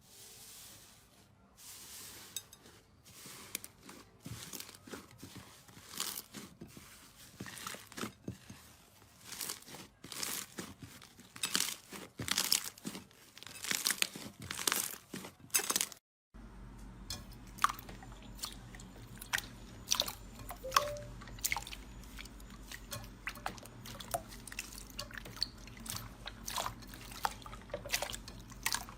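Slime being squeezed, poked and stretched by hand, giving a dense run of crackling clicks and wet pops. About halfway through, the sound cuts to another clip with a steady low hum underneath.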